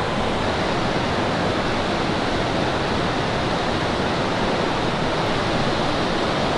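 Steady rushing of a fast-flowing river, an even, unbroken wash of water noise.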